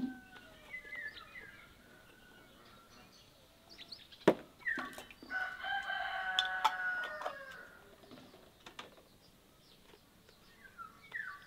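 A rooster crowing once, a single drawn-out call of about three seconds near the middle, with small birds chirping before it. A few sharp clicks sound, the loudest just before the crow.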